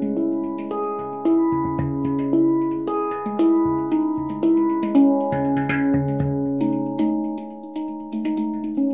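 Omana handpan tuned to a Mystic 7 scale in C#, played with the hands: a steady melodic run of struck notes that ring on and overlap, with a low note coming back again and again beneath them.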